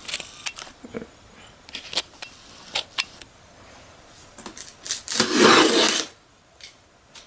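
Handling noise from unboxing a diecast crane model: scattered small plastic clicks and knocks, then about a second of loud rustling and scraping of packaging a little after five seconds in.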